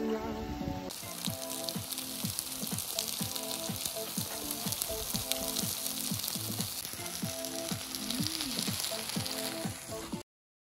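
Kimchi, enoki mushrooms and dumplings sizzling in a frying pan on a portable gas stove. The fizzing sizzle starts about a second in and cuts off abruptly just before the end.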